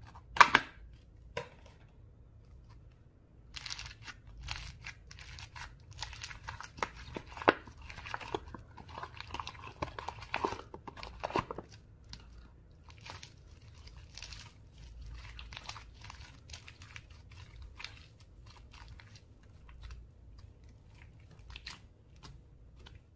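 Slime being squished, stretched and mixed by hand, giving sticky clicks and crackling pops. One louder sharp click comes about half a second in, the crackling is dense for several seconds after that, then thins to scattered clicks.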